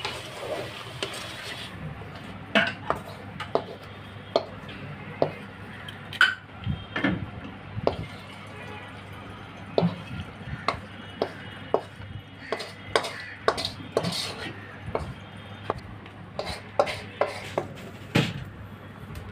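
A metal cooking spoon knocking and scraping against an aluminium kadhai as thick curry is stirred and scooped out, in irregular sharp clinks about one or two a second.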